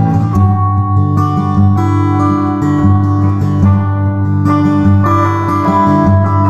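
Background music: acoustic guitar playing chords.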